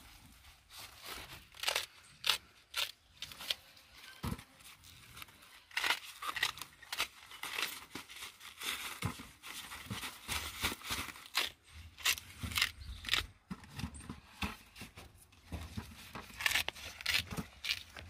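Corn husks and a plastic mesh sack rustling and crinkling in quick, irregular crackles as harvested ears of corn are packed into the sack by hand.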